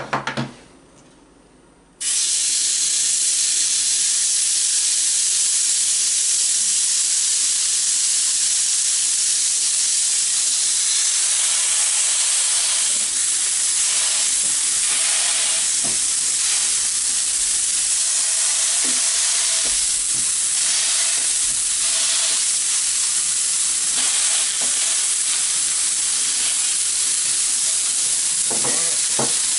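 Raw ground-beef patties sizzling on a Blackstone 17-inch electric griddle heated to about 500°F. The sizzle begins suddenly about two seconds in and then holds steady.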